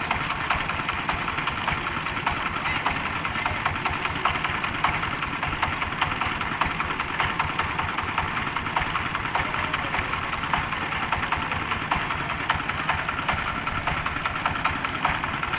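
Diesel-powered rice threshing machine running steadily, with a rapid knocking rattle that continues without a break.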